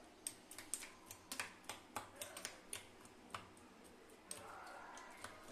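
Faint, irregular light clicks and taps, several a second, thinning out after about three seconds, then a faint steady sound.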